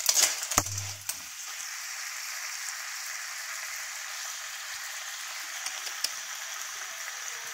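White clams in their shells with XO mushroom sauce sizzling in a wok: a steady hissing fry. A few clacks of the metal spoon against the wok and shells come in the first second.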